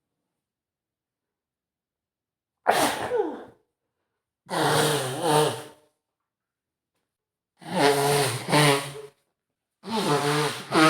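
A man sneezing four times with a head cold, voiced sneezes each about a second long with silence between them; the later ones come in two loud pushes, and the last runs on past the end.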